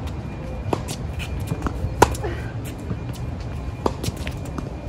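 Tennis ball being hit by racquets and bouncing on a hard court: three sharp pops, the middle one loudest, with faint shoe scuffs in between, over a steady low rumble.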